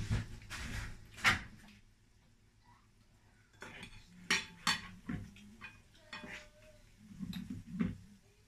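A slotted metal spoon clinking and scraping against a metal cooking pot and a ceramic plate as fried pieces are scooped out. Irregular clinks, with the loudest a little over a second in and a brief pause before more.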